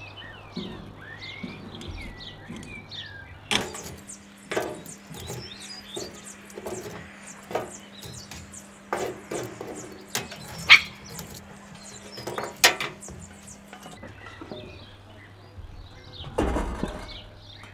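Long metal tongs clicking and charcoal briquettes clinking onto a steel cooking table in a run of sharp knocks, then a clatter as a spun steel camp oven and its trivet are set down over the coals near the end. Birds chirp throughout.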